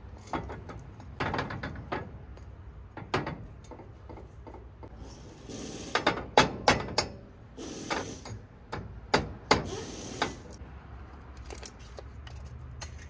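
Ball-peen hammer striking a steel bracket plate in a series of sharp, irregularly spaced taps, the hardest blows coming about six to seven seconds in.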